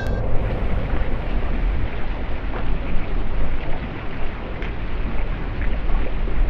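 A sharp crack at the very start, then a continuous deep rumbling roar with scattered crackles: the slowed-down sound of a bullet striking the water in a glass aquarium.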